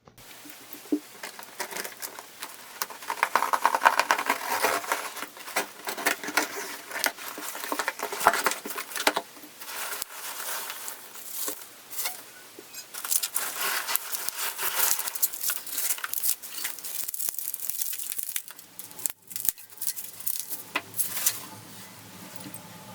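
Packaging being handled and unwrapped: irregular crinkling, rustling and tearing of paper or plastic wrapping, with small knocks, coming in uneven bursts.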